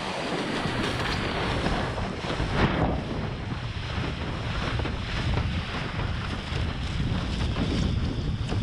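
Wind buffeting the microphone over the rush and slap of water under a slalom windsurf board sailing at speed, a steady noise with a louder surge about two and a half seconds in.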